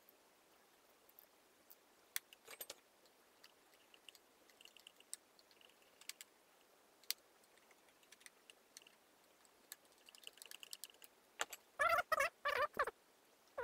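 Faint scattered clicks and taps of a screwdriver and a plastic socket strip being handled against a cable reel. About a second and a half before the end comes a quick run of four loud, short squeaks.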